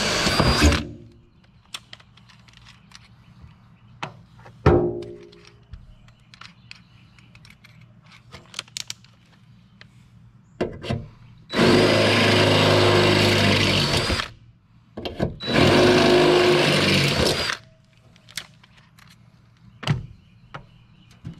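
Cordless drill running in short runs as it drills holes through a UTV's cargo bed wall. One run stops just under a second in, then two runs of about two and a half and two seconds come near the middle. Scattered taps and knocks fall between, one a sharp knock with a brief ringing tone.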